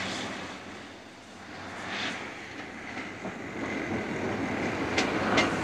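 Diesel train running along the line: a steady rumble and rush that dips a little and then builds again, with a few sharp wheel clicks near the end.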